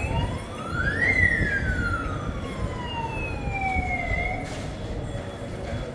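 Fire alarm system's electronic siren sounding a wail. It rises quickly for about a second, slides slowly back down over about three seconds, and breaks off about four seconds in. A steady low rumble runs underneath.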